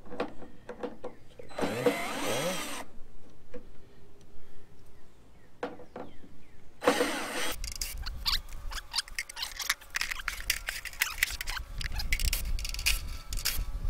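Cordless drill-driver run in reverse to back out screws: two short bursts of motor whine, about two seconds in and about seven seconds in, followed by a stretch of rapid clicking and rattling.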